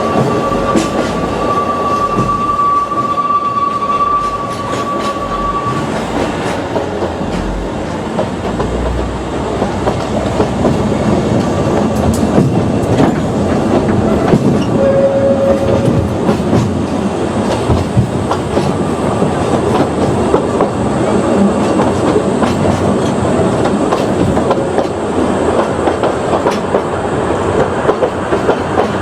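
Ōigawa Railway Ikawa Line passenger train running along the line, heard from inside the carriage, its wheels clicking steadily over the rail joints. A thin, steady wheel squeal sounds for the first six seconds, and a brief lower squeal comes about halfway through.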